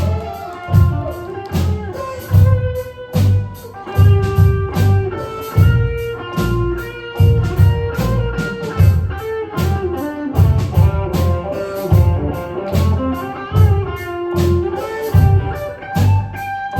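Live band playing an instrumental vamp: a guitar melody over drum kit and bass with a steady beat.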